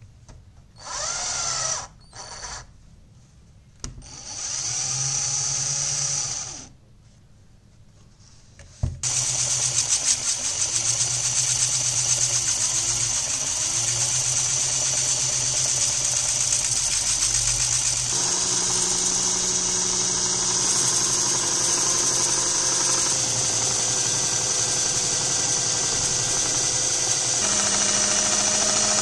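Cordless drill run in short bursts, first for a second and then for about two and a half seconds, as its chuck is tightened onto the shaft of a sandpaper-wrapped roller. From about nine seconds it runs steadily, spinning the roller while a kitchen knife blade is ground against the sandpaper, giving a continuous whirr with a hissing scrape.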